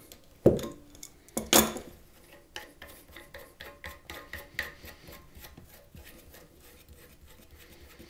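Plastic lock nut on a toilet fill valve's threaded shank being worked loose: two sharp clicks about a second apart near the start as pliers break it free, then a long run of small rubbing clicks as the nut is spun off the plastic threads by hand.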